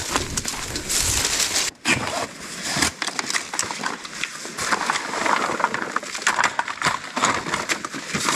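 Dry sticks and leaf litter crackling and scraping as fallen branches are dragged off a forest path. After a sudden break just under two seconds in, rustling and rattling clatter as a collapsible fabric wagon is unfolded and its frame opened out.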